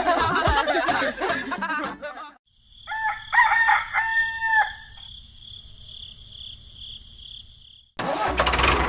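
Chickens: a jumbled stretch of clucking, then a rooster crows one long, held call. About eight seconds in, a loud different sound cuts in abruptly.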